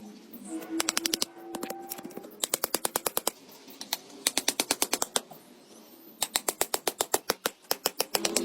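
Rapid knife chopping on a cutting board: four quick runs of sharp strokes, about ten a second, with short pauses between.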